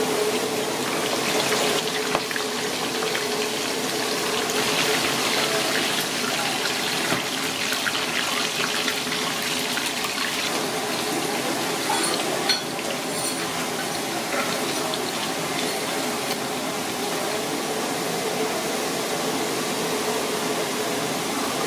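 Hot oil sizzling steadily in a wok as pieces of fish deep-fry, with a few light clicks of chopsticks and a metal skimmer against the pan. A steady hum runs underneath.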